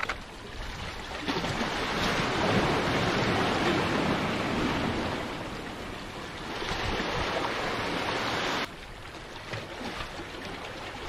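Steady rushing of sea surf washing against jetty rocks. It swells up about a second in and stops abruptly near the end, leaving a quieter wash.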